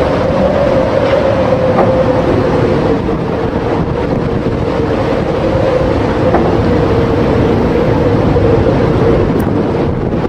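Storm wind buffeting the microphone over heavy seas breaking on a ship, a loud steady rushing noise with a constant mid-pitched drone underneath.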